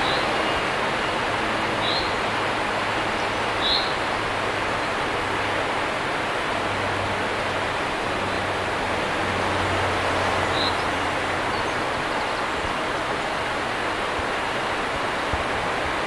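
Steady rush of river water pouring over a low weir and running through shallow riffles. Four short, high bird chirps are scattered over it, three in the first four seconds and one about ten seconds in.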